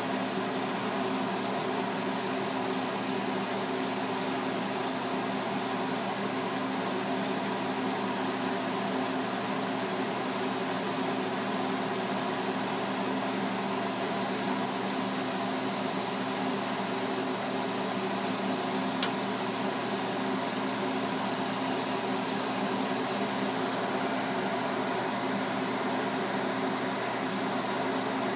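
Lampworking bench torch burning steadily, a constant hiss over a steady hum, while glass is worked in the flame. A single sharp click about 19 seconds in.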